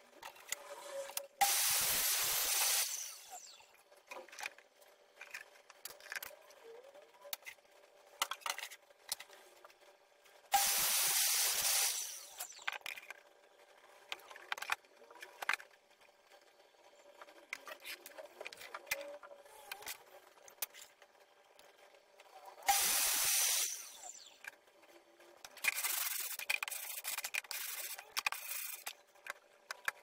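Masking tape pulled off the roll in three long strips, about ten seconds apart, then a run of shorter pulls and tears near the end. Light knocks and clicks of plywood panels being handled and fitted in between.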